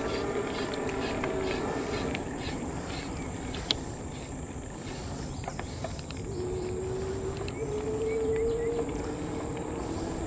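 Electric bike motor whining while riding, its pitch sinking and fading in the first seconds, then returning and rising again from about six seconds in, over a steady rush of wind noise on the microphone. A single sharp click a little before four seconds in.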